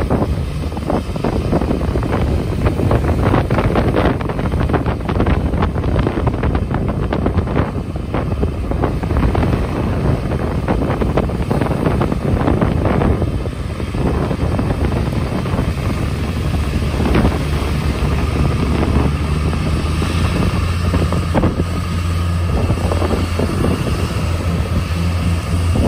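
Cat log skidder's diesel engine pulling a loaded boat trailer out of the surf, under wind buffeting the microphone and the wash of breaking waves. The engine's low hum grows stronger and steadier in the second half as the machine climbs the beach toward the microphone.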